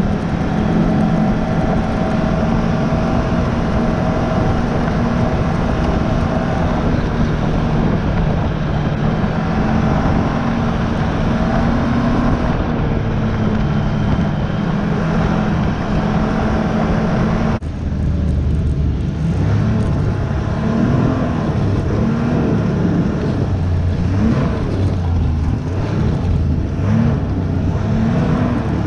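Snowmobile engine running at speed, a steady drone. After an abrupt change about two-thirds of the way through, the engine pitch rises and falls again and again as the throttle is worked.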